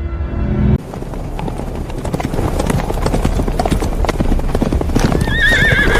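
Horses galloping, a rapid clatter of many hooves that starts just under a second in as the music cuts off. Near the end a horse neighs with a wavering call.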